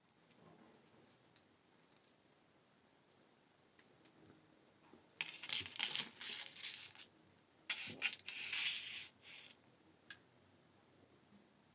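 Small metal jewelry pieces and hand tools handled on a work surface: a few light clicks, then two spells of scratchy metallic clinking, each about two seconds long, in the second half.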